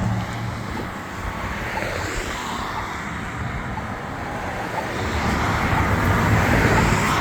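Road traffic running past, a steady rush of tyres and engines that swells as a vehicle passes near the end.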